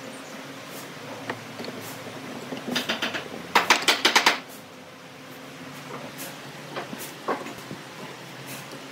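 Wooden parts of a kneeling chair clattering as the bolted seat boards are swung on their pivot bolts: a quick run of sharp clicks about three seconds in, a louder rattle of about ten clicks just after, then a few single knocks. A low steady hum sits underneath.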